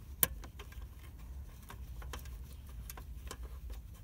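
Scattered small clicks and taps of a ground wire being screwed down on a car stereo head unit's metal chassis, one sharper click near the start, over a steady low rumble.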